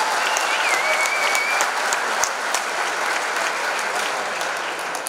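Large indoor crowd applauding, a dense patter of clapping that starts to fade near the end.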